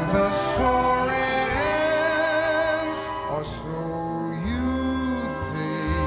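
Jazz orchestra playing a slow ballad passage: sustained notes and chords that shift every second or so over a low bass line.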